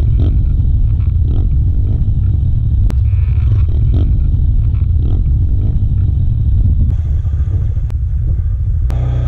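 Dirt bike and four-wheeler engines running together, a loud steady low rumble, with a change in the sound about seven seconds in.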